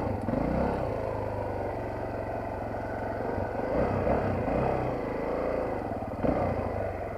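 Honda XLR trail motorcycle's engine running, with the revs rising and falling as the throttle is worked.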